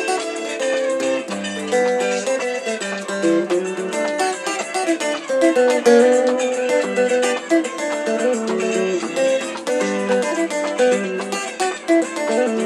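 Electric guitar playing quick, continuous soukous-style picked melody lines.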